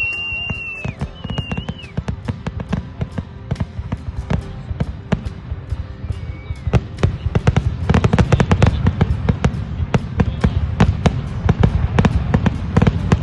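Fireworks going off in quick succession: many sharp bangs and crackles, thickest about eight seconds in and again near the end.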